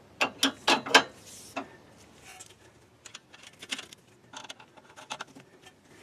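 Hand ratchet and metal tools clicking and clinking in short runs as the nut on a new front sway bar end link is run onto its stud.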